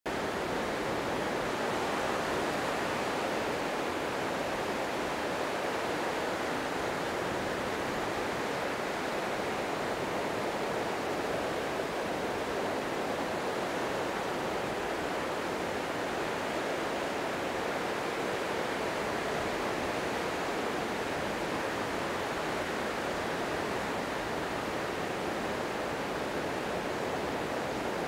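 Small wind-driven waves washing in at the edge of a sandy beach: a steady, even rush of surf with no single loud crash standing out.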